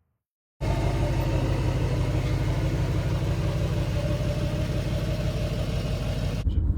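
An engine running steadily, cutting in abruptly about half a second in.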